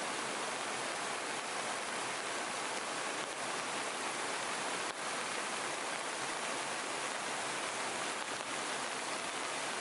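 Small creek running over stepped rock ledges and little falls: a steady, even rush of water.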